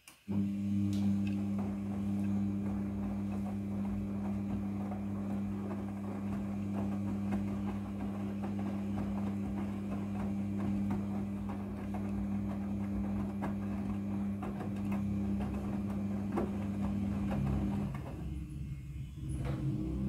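A Midea front-loading washing machine starts turning its drum a moment in, with a steady motor hum over the tumbling of the wet load. The hum stops about two seconds before the end, leaving only rougher tumbling noise.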